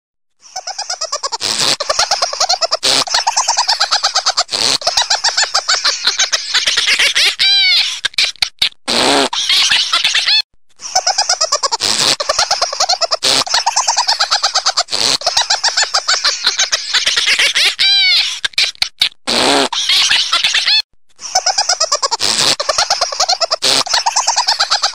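A looped comic sound clip of high, fast chirping and warbling calls that restarts about every ten seconds, with a short break before each repeat.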